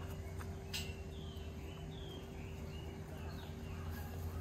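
Outdoor background with a steady low hum, over which small birds give a series of short chirps. There is a single sharp click a little under a second in.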